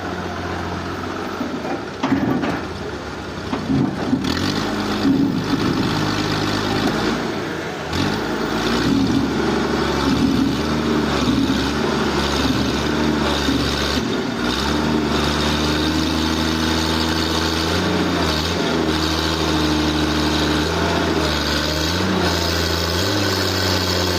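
Engine-driven sawmill machinery running steadily, a low hum whose pitch shifts in steps over the run, with a few knocks early on.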